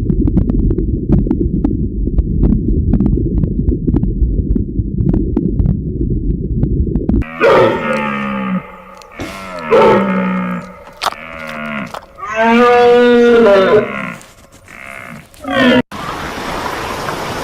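Cows mooing: several moos from about seven seconds in, one long moo in the middle. Before them, a low rumbling noise with faint clicks.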